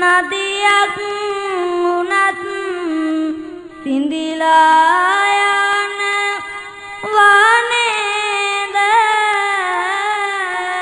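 A young Buddhist novice monk singing Sinhala kavi bana verses in a high child's voice through a microphone, a melodic line of long, wavering held notes, with two short breaks, about four and seven seconds in.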